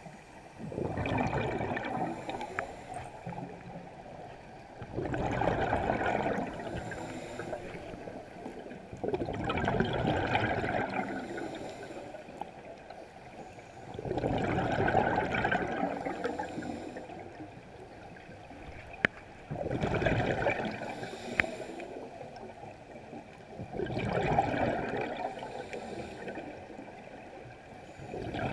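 A scuba diver's regulator exhaling underwater: bubbles rushing out in bursts of about two seconds, repeating roughly every four to five seconds with the breathing, heard through a GoPro's underwater housing.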